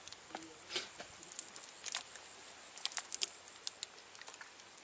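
A wet cast net being handled and picked through by hand on muddy ground: irregular small clicks and rustles from the mesh and mud.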